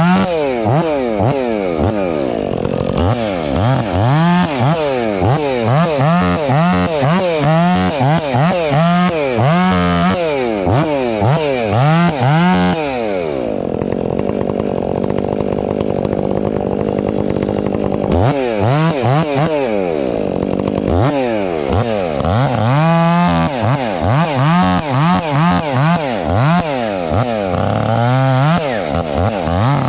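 Husqvarna 500i two-stroke chainsaw running, its engine revving up and down over and over as it works through wood, with a steadier stretch in the middle.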